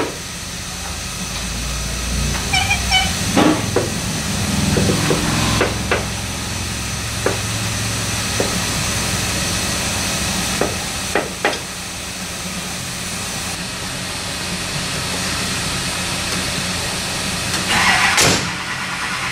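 Scattered light knocks and clanks over a steady low hum, then the hood of a 1968 Chevrolet Camaro is shut with a single thud near the end.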